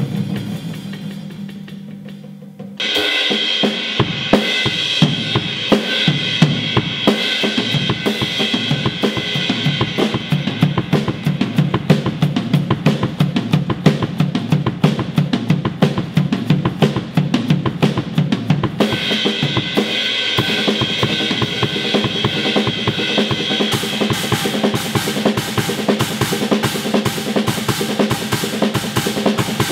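Acoustic drum kit played with sticks: a low drum note rings and fades, then about three seconds in a fast, steady groove starts on bass drum, snare and cymbals. The cymbal wash drops out for a moment a little past the middle and comes back.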